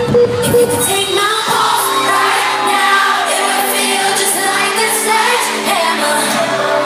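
Live pop music heard from the audience at a concert: a heavy beat cuts out about a second in, leaving held synth chords under female singing.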